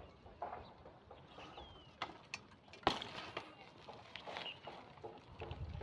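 Mountain bike rolling past over a rough, gravelly road, with scattered light ticks and one sharp knock about three seconds in. A bird gives a short falling chirp about a second and a half in.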